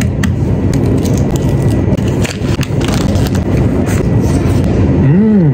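Close-up eating sounds: biting into and chewing a chicken breast skewer, with scattered sharp clicks and crackles from the food and its handling, over a steady low rumble. Near the end comes a short hummed 'mm' that rises and falls in pitch.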